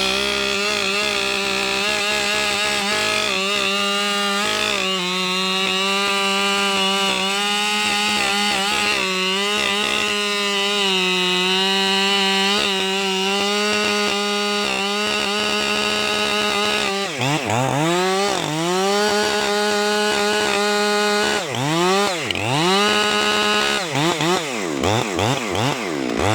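Husqvarna 592XP two-stroke chainsaw cutting through a large hardwood trunk, its engine holding a steady note under load. About two-thirds of the way in the throttle is let off and blipped several times, so the engine revs up and down repeatedly.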